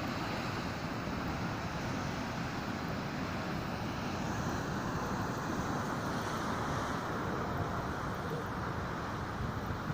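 Sea waves washing in as a steady rushing noise, with no single break standing out.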